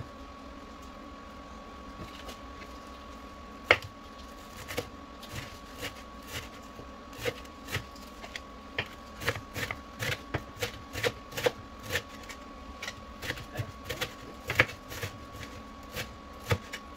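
Kitchen knife chopping fresh coriander on a wooden chopping board: sharp knocks of the blade on the board, a few at first, then a steady run of about two to three chops a second, quickening in places.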